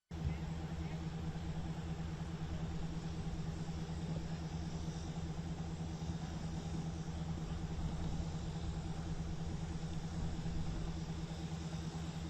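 A vehicle engine idling steadily: a constant low rumble with a steady hum.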